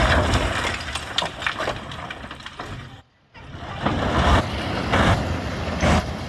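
Bulldozer working: its diesel engine running under load with the rumble and clatter of the machine and dirt. It breaks off for a moment about three seconds in, then carries on.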